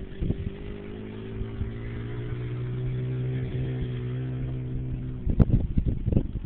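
Small engine of a Kawasaki 90 youth four-wheeler running at a steady pitch as the ATV rides along; the engine sound drops away about five seconds in. Gusts of wind buffet the microphone near the end.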